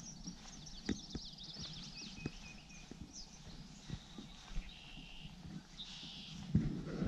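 Birds singing in quick high trills and short thin whistles over a quiet lakeshore, with scattered soft knocks and a few heavier thumps near the end.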